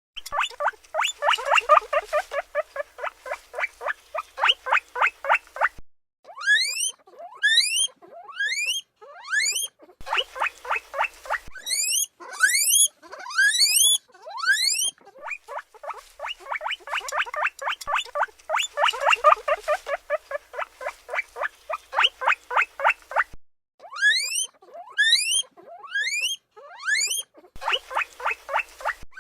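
Guinea pigs calling: fast runs of short squeaks, about five a second, alternate with rising whistled wheeks.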